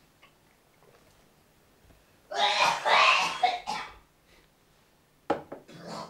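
A person coughing: a run of several loud coughs about two seconds in, then a sharp single cough near the end.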